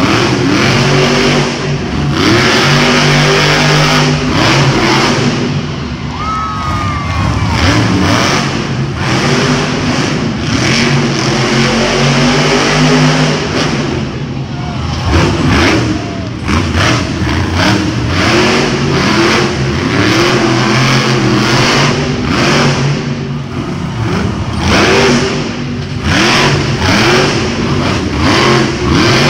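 Monster trucks' supercharged V8 engines revving hard over and over, the pitch rising and falling with each blip of the throttle.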